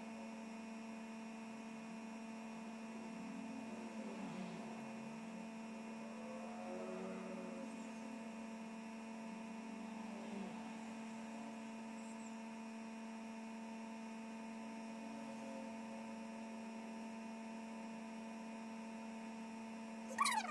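Steady electrical hum made of several constant tones, the strongest a low one, holding unchanged throughout.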